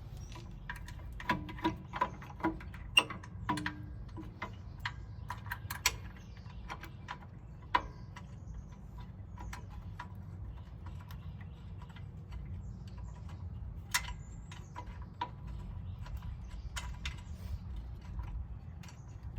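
Irregular metallic clicks, clinks and knocks as a new rear brake caliper is fitted and its mounting bolt is worked into line by hand, over a steady low hum.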